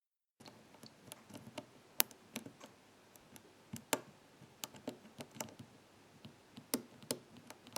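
Metal lock picks clicking against the pins and warding inside an ABUS 83/45 pin-tumbler padlock: irregular small ticks, starting about half a second in, with a few sharper ones about two, four and seven seconds in.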